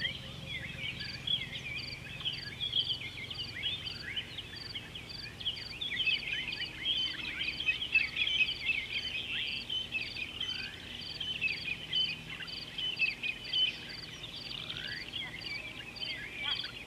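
Dense chorus of many birds chirping and twittering together, with a short high note repeating evenly about twice a second above them.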